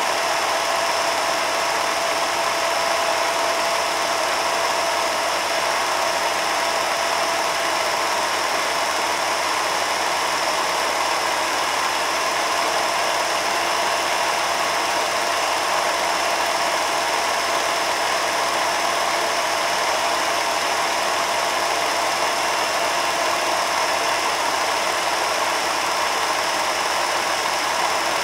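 Film projector running: a steady mechanical whir and rattle with a constant tone, unchanging throughout.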